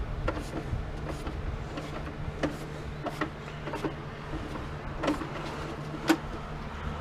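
Scattered clicks and knocks of an electric typewriter's plastic casing being handled and worked open by hand, over a steady low hum.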